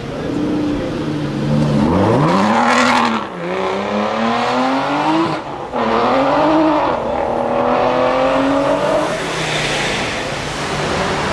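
Aston Martin V12 Vantage's V12 engine accelerating hard, its note climbing and then dropping back several times as it pulls away and shifts up.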